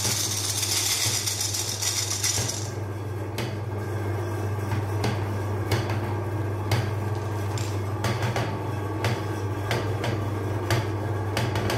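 A red electric meat grinder's motor humming steadily, with scattered clicks and clinks as a glass plate and candy balls are handled. A hiss in the first two or three seconds stops abruptly.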